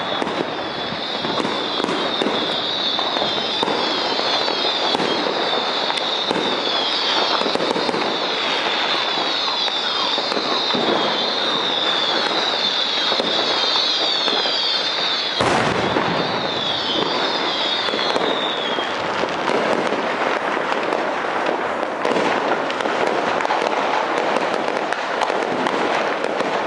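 Dense, unbroken crackle and popping of many fireworks and firecrackers going off all over a city, with one sharper bang about halfway through. A high, shrill sound made of quick falling sweeps runs through the first two-thirds and then stops.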